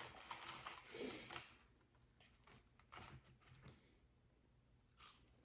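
Faint chewing and mouth sounds of someone eating, in a few soft scattered bursts.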